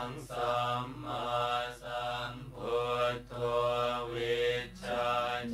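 Buddhist chanting: short chanted phrases, each held on a steady pitch and following one another in an even rhythm, over a steady low hum.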